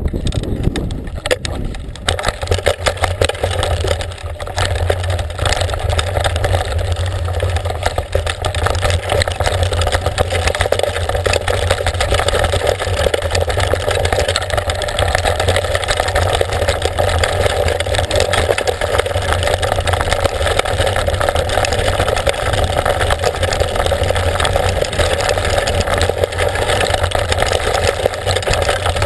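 Loud, steady noise of a mountain bike ridden over a rough trail as picked up by a bike-mounted action camera: wind on the microphone and the rattle of the bike and camera housing over the bumps, with constant small clicks and knocks.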